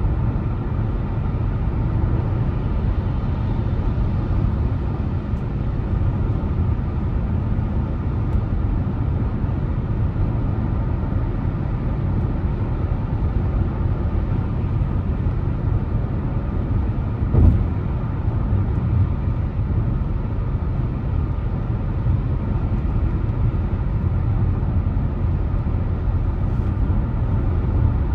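A car driving at steady speed: an even low rumble of tyres and engine, with a single thump, as of a bump in the road, a little past halfway.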